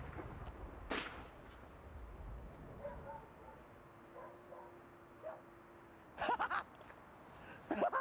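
Low rumble of a test bomb explosion dying away over the first second or two, with a single sharp knock about a second in. About six seconds in come a few short, loud, excited shouts from men, and more start near the end.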